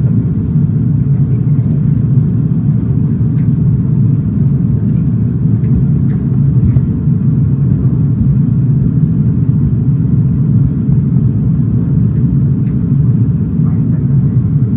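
Steady, loud low rumble of an Airbus A320 flight simulator's cockpit sound, the simulated engine and airflow noise during the approach, with a few faint clicks.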